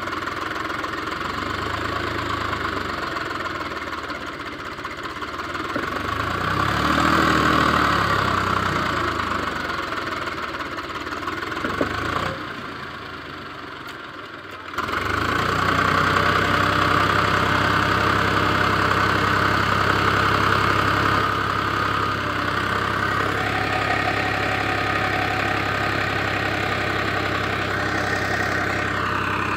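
Swaraj 834 XM tractor's three-cylinder diesel engine running under load as the driver tries to drive the bogged tractor and trailer out of deep sand, the rear wheel spinning. It revs up about seven seconds in, drops back to a quieter level for a couple of seconds near the middle, then runs hard and steady to the end.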